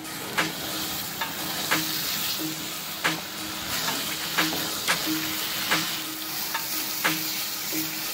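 Wooden spatula stirring and scraping chhena (fresh cheese curd) in a nonstick pan over heat, under a steady sizzle, with a light knock or scrape of the spatula on the pan about every two-thirds of a second. The curd is being cooked dry for sondesh.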